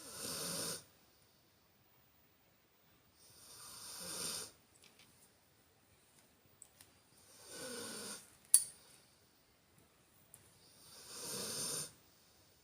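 Loud snoring: four snores about four seconds apart, each growing louder over about a second and then stopping abruptly. A sharp click comes just after the third snore.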